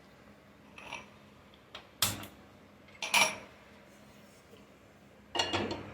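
Metal pan (a tawa) clanking as it is handled and set on a gas stove: a few separate knocks, the sharpest about two and three seconds in and another near the end.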